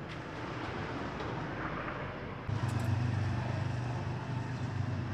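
A low, steady motor hum comes in about halfway through over a noisy background, with a few faint clicks just after it starts.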